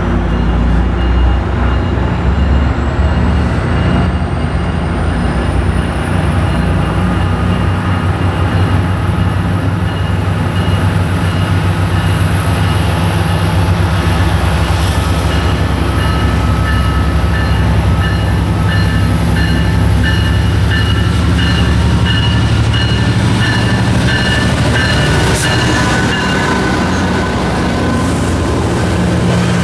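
Diesel-hauled passenger train pulling out and accelerating. The locomotive's engine runs steadily while a high whine rises in pitch over the first several seconds, with faint squeal from the wheels.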